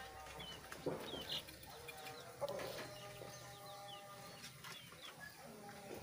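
A caged albino sooty-headed bulbul giving a few short, high chirps, with lower calls from other birds in the background.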